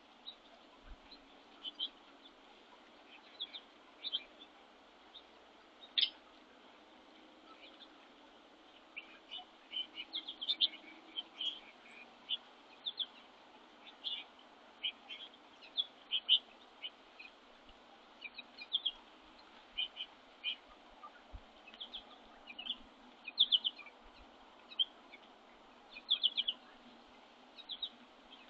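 Small songbirds at a feeder giving many short, high chirps in scattered bursts, busier from about nine seconds in, with one sharp, louder note about six seconds in.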